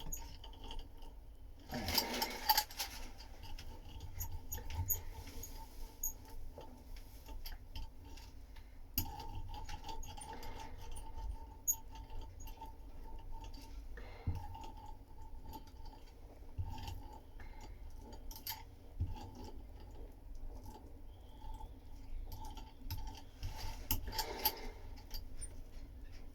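Hand laminating of wet resin into fibreglass mat: a stream of faint sticky clicks and dabs as the resin is worked into the contours. Two brief louder rubbing sounds come about two seconds in and near the end.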